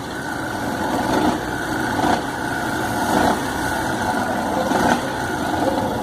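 A motorcycle engine running steadily at idle, with small rises and falls in level about once a second.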